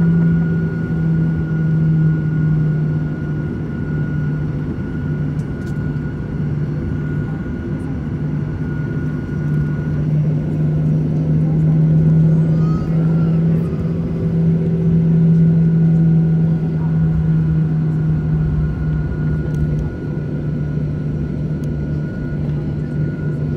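Cabin noise of a Boeing 737-800 taxiing: its CFM56-7B jet engines at idle give a steady low hum with a thin steady whine above it and a constant rush of air.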